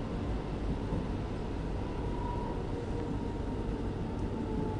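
Stockholm commuter rail X10 electric multiple unit running along the track: a steady low rumble of wheels and motors, with a faint whine that drifts slightly lower in pitch.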